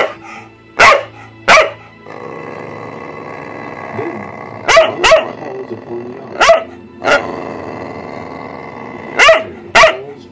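Dog barking in short, loud single barks and quick pairs, about nine barks in all.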